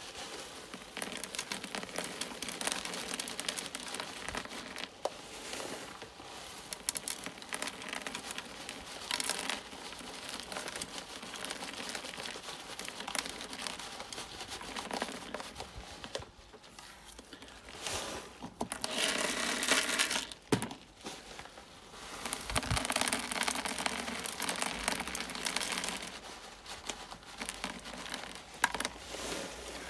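A plastic bag crinkling and rustling as ballast is poured and shaken from it into the hollow plastic dome of a pond bottom drain, with the grit trickling in. It comes in uneven spells, loudest in two stretches in the second half.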